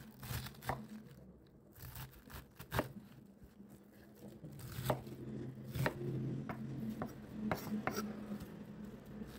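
A kitchen knife slicing through a head of white cabbage, each stroke ending in a sharp knock on a wooden cutting board, at an uneven pace, louder in the second half.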